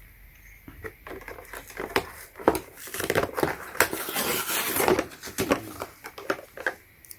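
Hand-handling noises: quick small clicks and rustling as the flashlight is unscrewed and readied for its battery, busiest in the middle.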